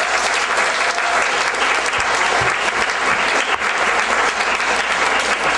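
An audience applauding: many hands clapping together in a dense, steady wash of sound.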